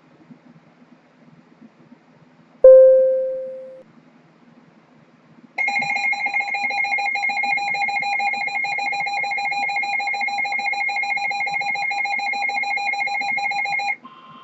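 A single loud chime-like tone about two and a half seconds in, which dies away within about a second. About three seconds later comes the Emergency Alert System attention signal: a steady two-tone alarm held for about eight seconds, which cuts off sharply.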